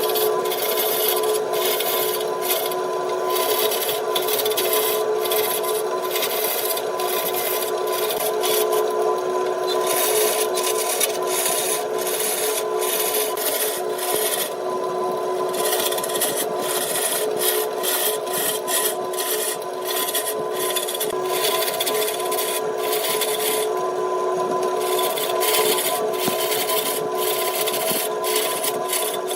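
Wood lathe running with a steady hum while a tool rasps against the spinning wood, the scraping coming and going in many short strokes.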